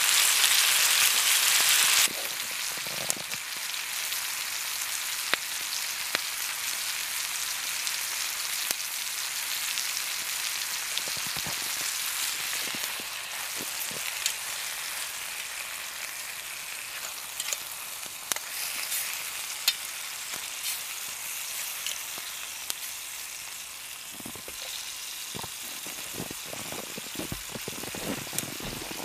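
Food sizzling in a frying pan on a wood campfire: a steady hiss with scattered crackles and pops from the burning wood. The sizzle is loud for about the first two seconds, then drops to a quieter, steady level.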